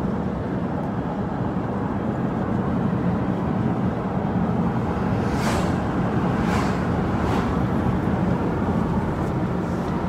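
Steady low road and engine noise inside a moving car, with three brief hissing swishes about halfway through.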